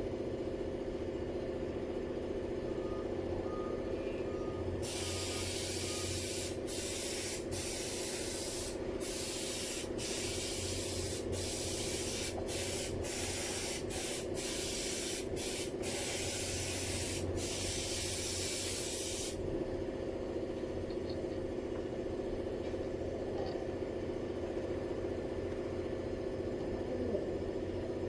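A pressurised spray hissing in a long run of short bursts with brief breaks, over a steady machine hum.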